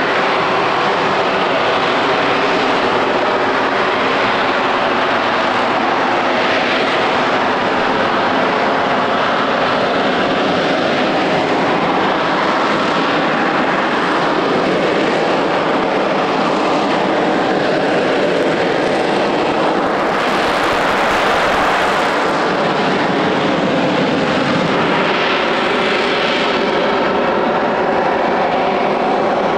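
Rolls-Royce Pegasus vectored-thrust turbofan of an EAV-8B Harrier II Plus jump jet running loud and continuous, its pitch rising and falling slowly several times.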